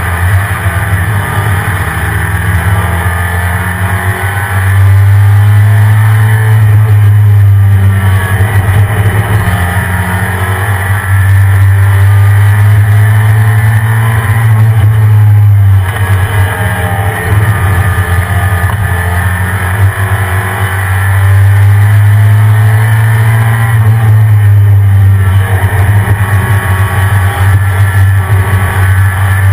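1993 Ford SVT F-150 Lightning's 5.8-litre V8 running under way, a steady low drone that swells louder for several seconds at a time, twice, then eases back.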